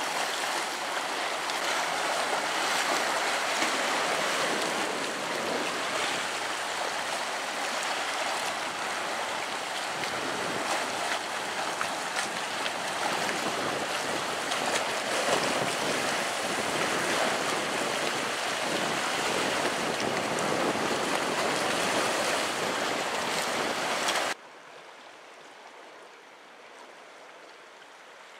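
Sea surf washing over and around a rocky reef: a steady rushing hiss of water. About 24 seconds in it drops suddenly to a much quieter wash.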